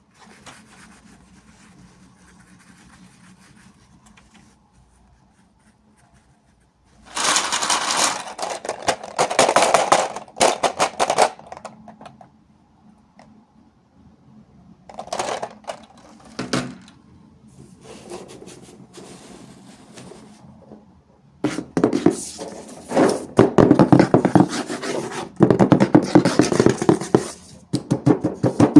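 Packaging crinkling and rustling as it is handled and opened, in three bursts of rapid crackling with quiet stretches between them.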